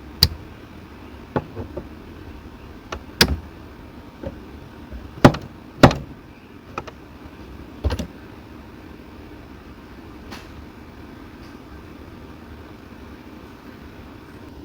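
Sharp mechanical clicks and clunks from a 2012 Ford Figo's gear shifter and its shift lock being worked with the brake pressed, about six in the first eight seconds with the loudest two near the middle; after that only a low steady hum.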